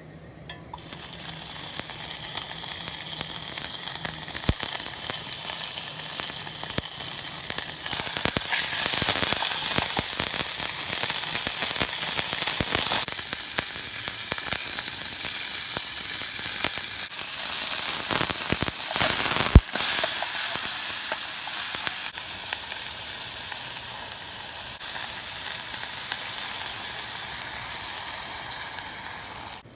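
Beef frying in a hot sukiyaki pan, sizzling with scattered pops. The sizzle starts suddenly about a second in. It is loudest through the middle, with one sharp pop, and eases off after about twenty-two seconds.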